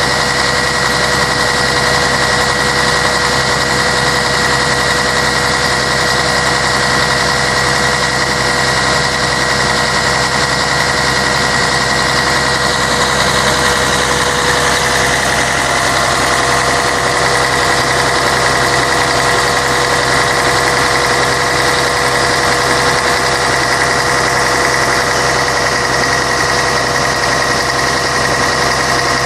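Scania K113 bus's 11-litre six-cylinder diesel engine running steadily, with a constant whine over the engine. The pitch of the whine shifts slightly about halfway through.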